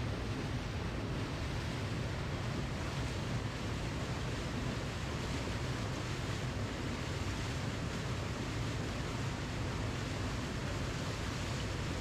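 Waterfall: falling water rushing in a steady, unbroken wash, heaviest in the low end.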